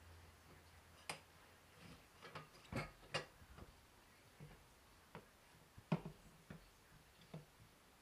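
Scattered clicks and metal knocks from a manual tire changer as its bar is levered around a motorcycle wheel to work the tire bead, the loudest knocks about three seconds and six seconds in.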